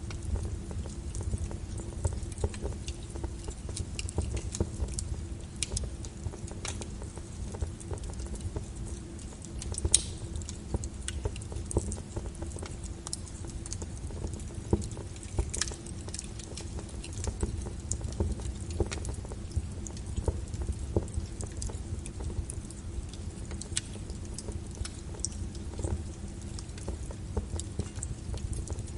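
Wood fire in a fireplace crackling: dense, irregular small pops and snaps over a low rumble. Sharper pops stand out about ten seconds in and again around sixteen seconds.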